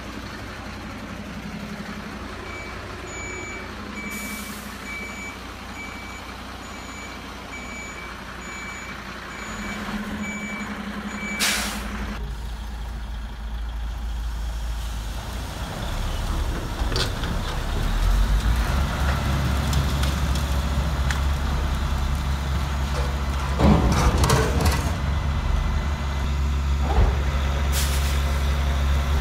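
Radio-controlled model truck's sound unit playing a truck reversing beeper, about one and a half beeps a second, which ends in a short air-brake hiss about eleven seconds in. After that a low diesel-engine drone comes in and grows louder, with a few short clattering noises near the end.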